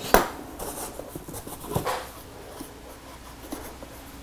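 Handling noise as a light's control unit and its packing are moved about: a sharp knock just after the start, then rubbing and scraping, with a second, weaker knock near two seconds in.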